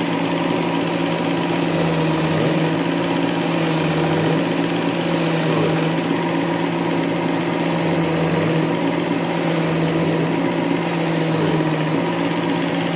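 WorkSharp Ken Onion Edition belt sharpener with its blade grinder attachment running steadily, a knife blade drawn across the medium abrasive belt. The grinding hiss changes and the motor dips slightly with each pass, about every one and a half to two seconds.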